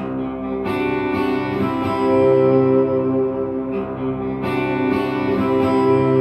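Guitar strumming chords over a sustained held tone, in a piece built on tritone intervals. There is one group of strums about a second in and another just past halfway.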